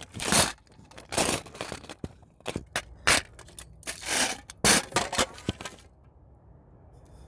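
Irregular crunching and scraping sounds with sharp clicks, stopping about six seconds in.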